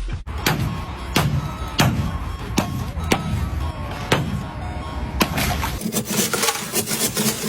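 Ice cracking and breaking in a series of sharp, separate cracks about half a second to a second apart. After about six seconds it turns into a dense run of small crackles, with background music throughout.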